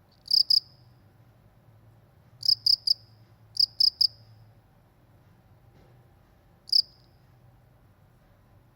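A cricket chirping: short, high-pitched chirps in groups of two or three, with pauses of a second or more between groups, and one lone chirp near the end.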